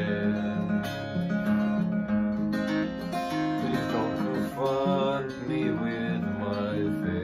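Taylor acoustic guitar being played, with a man singing over it.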